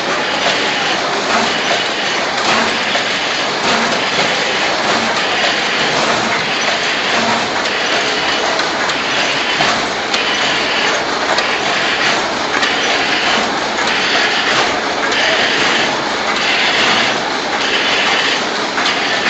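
Chirag lined carton packing machine running: a loud, steady mechanical clatter from the carton conveyor and filling mechanism, pulsing regularly about once a second with the machine's cycle.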